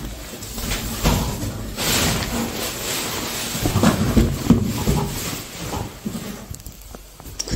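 Fabric rustling and light knocks as hands handle a baby stroller's carrycot and its cover.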